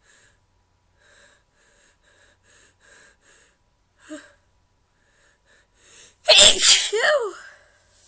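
A woman's single loud sneeze about six and a half seconds in, ending in a cry that falls in pitch. Before it come a run of faint, quick catching breaths and a short gasp about four seconds in.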